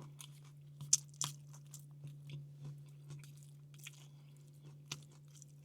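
A person chewing and crunching a mouthful of a Korean BBQ pork bowl with vegetables: irregular soft crunches and mouth clicks over a steady low hum.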